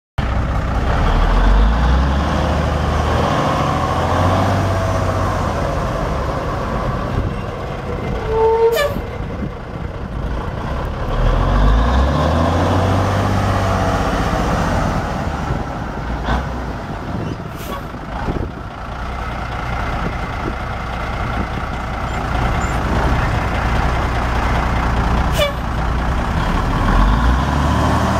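Cummins NTC240 six-cylinder diesel engine of a 1984 Ford F9000 dump truck running, its pitch rising and falling twice as it is revved. A short squeal comes about a third of the way in, and a few sharp short sounds stand out over the engine.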